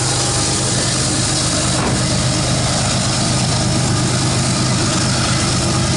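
Pickup truck engine idling steadily, with an even low hum.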